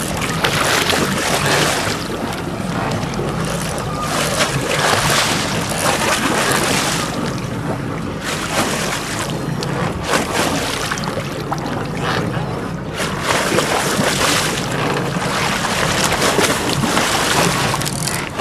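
Fishing boat's engine running with sea noise around the hull and wind buffeting the microphone in uneven gusts.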